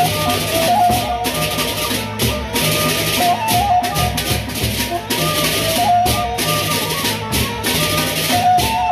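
A Sasak gendang beleq ensemble playing a gending: large barrel drums (gendang beleq) beaten, hand cymbals clashing in a fast steady pattern, and a melody of short stepped tones over gongs.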